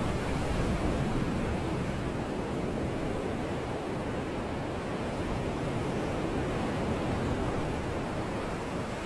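Sea surf: waves washing in a steady, even rush of noise.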